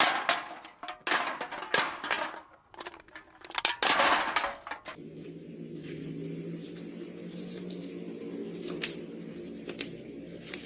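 Hands squishing and pressing slime, with loud irregular crackling squishes. About five seconds in it turns quieter: a steady low hum with a few sharp pops.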